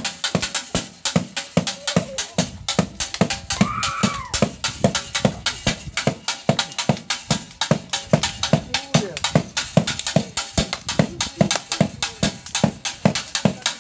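Fast, steady drumming for dancing, about five sharp strikes a second. A short high call rises and falls about four seconds in.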